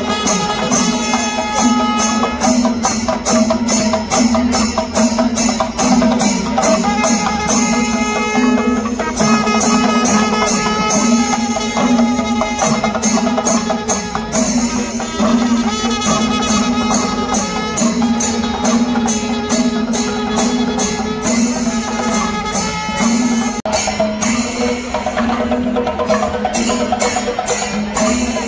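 Music with a fast, steady run of percussion strikes over a held low drone and sustained melodic lines.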